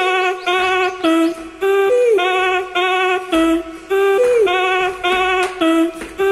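Background music: a short melody of held, wavering notes with a falling slide in each phrase, looping about every two seconds.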